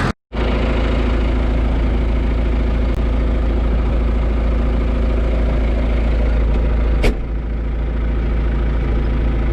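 John Deere 2755 tractor's diesel engine running steadily, with a single sharp click about seven seconds in.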